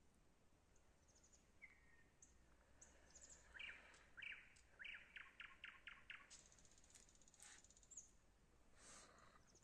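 Songbirds calling and singing, faint: thin high trills and chirps throughout, with a run of about seven short downward-sweeping notes in the middle.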